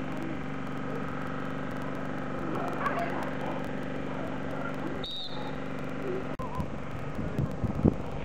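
A steady mechanical hum, like an idling engine, with faint distant voices and a short high chirp about five seconds in; wind buffets the microphone near the end.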